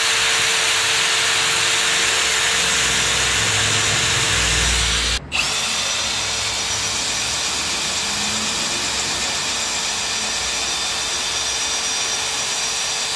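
Electric drill boring through the steel radiator support of a car, running steadily under load as the bit cuts into the metal. There is a brief break about five seconds in, then drilling resumes.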